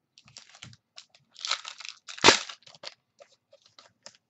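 Football trading cards and their packaging handled on a table: a run of light rustles and clicks, with one loud crinkling crack a little past two seconds in.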